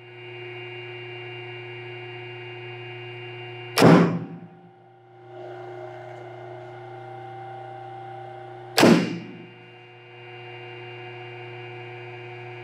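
Two small electric motors running in turn, switched every five seconds by a PLC, with a steady hum. About four seconds in and again near nine seconds, a loud clack of contactors switching over. The hum drops for a moment and comes back as the other motor spins up.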